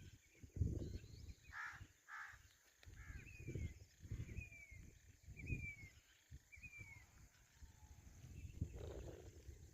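Birds calling outdoors: two harsh calls about two seconds in, then four short falling chirps about a second apart. Wind buffets the microphone in uneven low gusts throughout.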